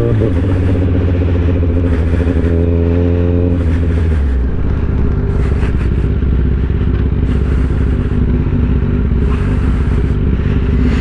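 Sport motorcycle engine heard from the rider's seat while riding. The engine note holds steady under throttle, drops in pitch about four seconds in as the bike slows into traffic, then runs low and even.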